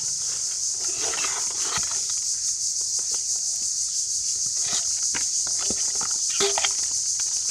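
Steel bowl scraping and knocking against a plastic tub as it scoops up wriggling catfish in shallow muddy water, with a few short knocks and wet slaps. A steady high-pitched hiss runs underneath.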